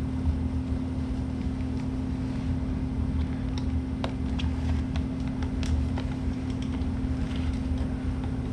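Steady low mechanical hum with a constant tone, under a few faint scattered clicks and taps as blinker wires are routed behind motorcycle fairing plastic.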